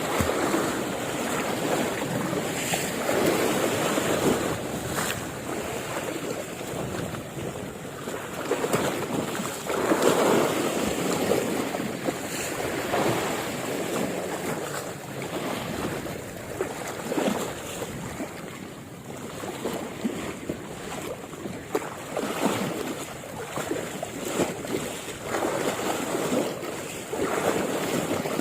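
Sea waves washing in, swelling and easing every few seconds, with wind buffeting the microphone.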